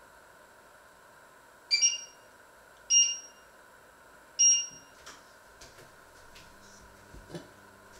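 Three short electronic beeps, a second or so apart, each with two pitches together: the touch controls of an electric hob being pressed. A few faint clicks follow.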